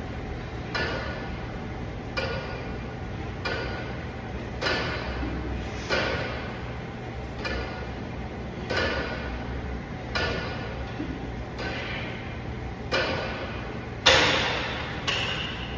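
Cable machine weight stack and handles clinking metal on metal with each rep, a ringing clink every second or so at an uneven pace. A louder clank comes about fourteen seconds in, as a handle is let go.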